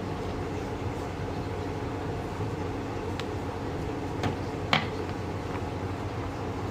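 A steady low hum, with three sharp clicks about three to five seconds in, the last one the loudest.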